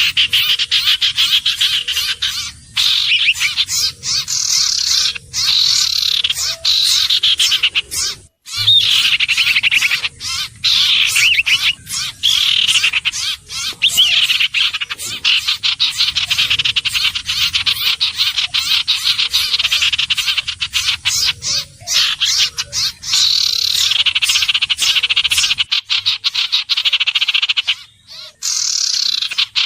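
Iora calling: rapid chattering, pulsed trills repeated in phrases with brief gaps between them.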